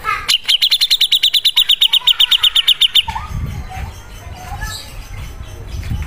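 Grey-cheeked bulbul (cucak jenggot) singing: a fast, even trill of about nine high notes a second for nearly three seconds that stops suddenly, followed by softer scattered calls.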